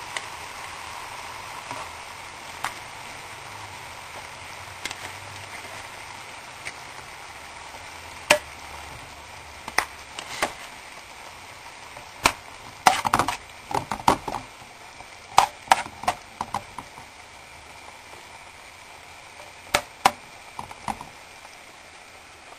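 A spoon tapping and clinking against a metal frying pan as cannellini beans are spooned into a simmering tomato sauce, with a faint steady sizzle underneath. The taps are scattered, with a quick cluster in the middle and a few more near the end.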